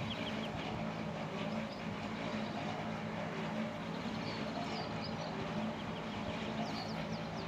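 Birds chirping over a steady low mechanical hum.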